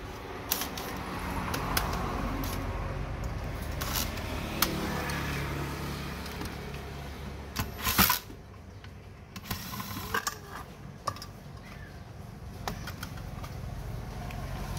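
Metal clinks, taps and scraping from hand work on a water pump's metal parts, with a few sharp knocks, the loudest about eight seconds in, over a steady low hum.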